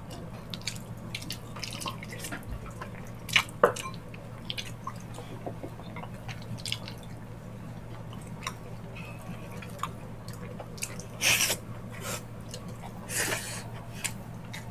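Close-miked wet eating sounds: mouths chewing and smacking on ox-feet balbacua stew eaten by hand, a string of short wet clicks and smacks. Two longer, louder wet sounds come near the end, over a steady low hum.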